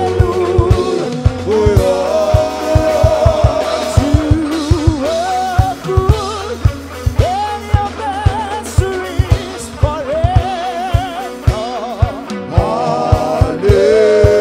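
Live praise and worship music: a singer's voice over a band with a sustained bass line and a steady drum beat.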